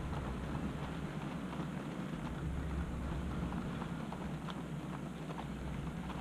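OO gauge model goods wagons rolling past close by, their wheels clicking over the rail joints, over a steady low rumble.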